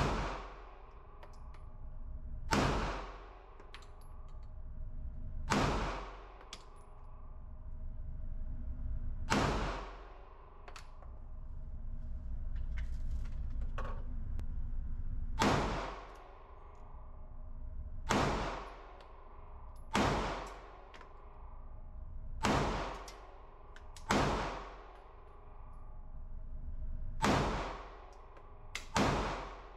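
Smith & Wesson Shield Plus pistol fired in slow single shots, about eleven of them spaced two to six seconds apart, each with a short echo off the concrete lane.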